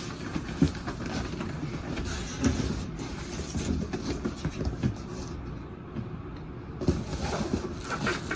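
Rustling and bumping of cardboard and packing material as a record player is worked out of its shipping box, with a few sharper knocks scattered through.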